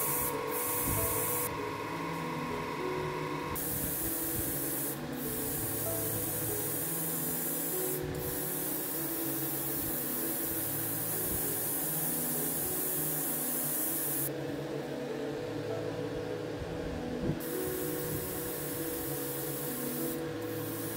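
Airbrush hissing as it sprays paint onto small plastic model parts, stopping for a couple of seconds twice. Background music plays underneath.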